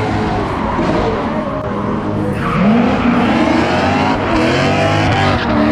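Drift car's engine revving up and down repeatedly while its tyres squeal in a slide, the tyre noise growing louder about halfway through.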